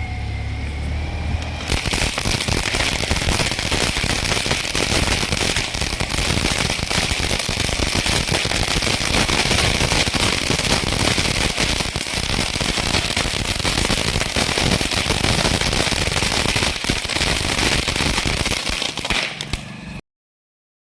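A '5G' pistol-type firework going off with a dense, rapid crackle that starts about two seconds in, runs on without a break for around eighteen seconds, then cuts off suddenly.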